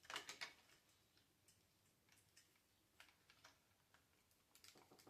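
Faint, scattered light clicks of small plastic model parts and a tiny spring being handled, a few quick clicks at the start and near the end with single ticks between.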